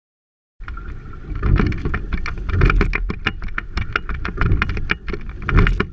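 Sculling boat under way, starting about half a second in: a dense, irregular clatter of clicks and knocks from the oars and boat over a heavy low rumble of wind on the microphone.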